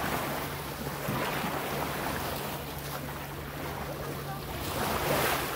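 Small waves washing in at the shoreline with wind rushing over the microphone, the wash swelling louder about a second in and again near the end, over a steady low hum.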